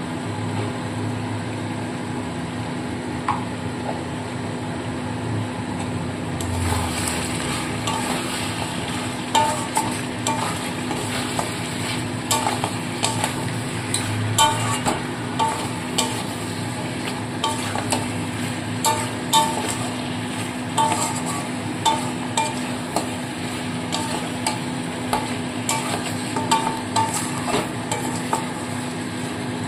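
Metal spatula stirring mutton and ground spices in a metal kadai, with frequent irregular clicks and scrapes of metal on the pan starting about six seconds in. Underneath is a steady sizzle of the meat frying.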